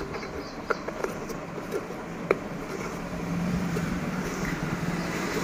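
Scattered light clicks and taps from a plastic wiring connector and headlight bulb holder being handled, over a low steady hum that comes in about halfway through.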